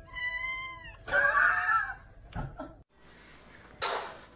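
Kitten meowing twice: a thin, high, clean meow that dips at its end, then a louder, rougher meow. A brief hissing burst of noise follows near the end.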